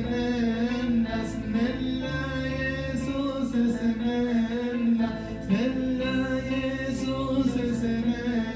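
A man singing into a microphone in long, wavering held notes without clear words, over sustained chords and bass notes from a Korg electronic keyboard.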